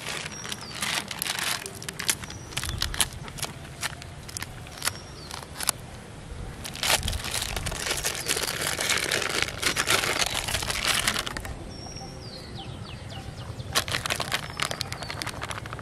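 Crinkling and rustling of a plastic packet of powdered fish bait being handled and worked open, with scattered sharp clicks; the longest and loudest crinkling comes in the middle.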